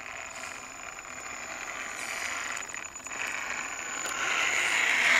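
Electric scale RC rock crawler's motor and gears whirring under load as it climbs loose dirt, with a steady high whine, growing louder over the last second or so before cutting off suddenly.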